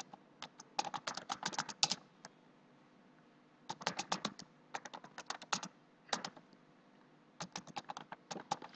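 Typing on a computer keyboard: quick runs of keystroke clicks in several bursts, with short pauses between them.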